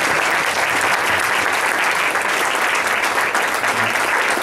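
Audience applauding steadily: many hands clapping at once, with no break.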